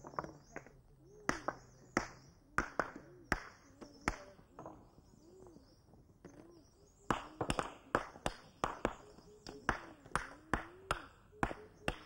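Small hand hammer striking stone, a series of sharp ringing knocks in irregular runs as rock is broken into gravel by hand; the strikes come quicker about seven seconds in. Behind them a bird repeats a low, rising-and-falling hooting call.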